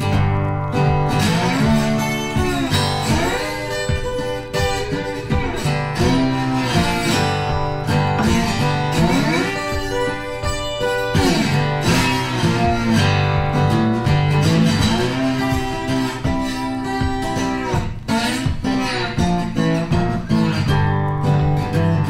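Background music led by acoustic guitar.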